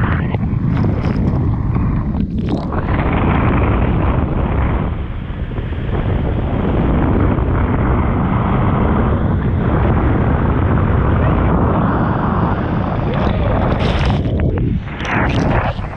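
Wind buffeting an action camera's microphone together with rushing water and spray as a barefoot water skier is towed at speed. Near the end it gives way to a few sharper bursts of splashing.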